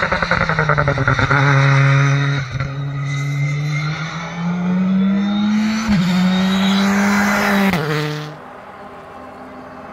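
Rally car engine worked hard at high revs along the stage, with a fast stuttering, crackling pulse near the start as the driver lifts off. It pulls again with pitch steps from gear changes at about 2.5 and 6 seconds, then stops suddenly about 8 seconds in, leaving only faint background.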